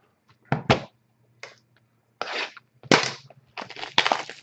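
A series of short, sharp snaps and scrapes: the factory seal on a sealed hockey card box is broken and the box is worked open.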